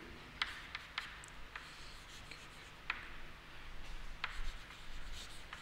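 Chalk writing on a chalkboard: faint scratchy strokes with sharp taps at irregular intervals as the chalk meets the board.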